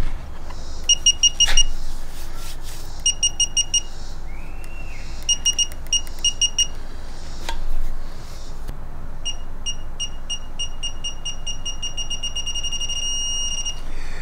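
Digital torque wrench beeping in quick groups of about four high beeps, then beeping faster and settling into a long steady tone near the end: the wrench's signal that the set torque is being approached and then reached. A couple of sharp clicks are heard along the way.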